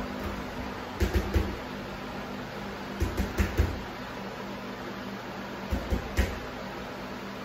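Gloved punches landing on a hanging heavy bag in quick combinations: about three thuds a second in, four around three seconds in, and three more near six seconds in. A steady low hum runs underneath.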